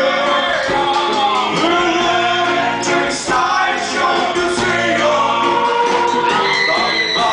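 Live band music with singing, over drums with regular cymbal hits and electric guitar.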